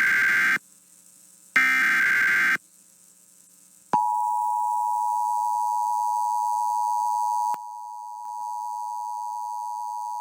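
Emergency Alert System SAME header: two bursts of warbling digital data tones, about a second each, a second apart. About four seconds in, the steady two-tone EAS attention signal starts and holds, dropping somewhat in level about halfway through.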